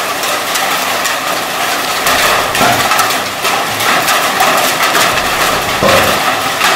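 Heavy rain and hail from a thunderstorm pounding down: a dense, steady hiss peppered with many small sharp hits.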